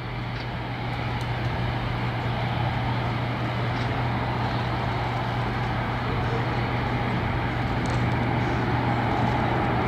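Jet noise from a Boeing P-8 Poseidon's CFM56 high-bypass turbofan engines, a steady rumble that slowly grows louder as the aircraft approaches.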